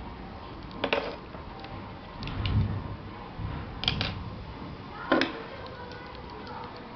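Small handling noises from plastic wiring parts and wire being picked up and handled: three short clicks about one, four and five seconds in, and a soft low thump around two and a half seconds.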